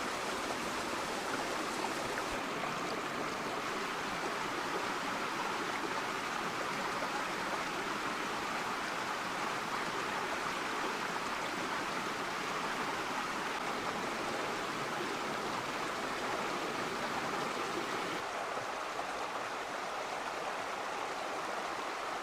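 Shallow, rocky stream running over stones: a steady rush of water.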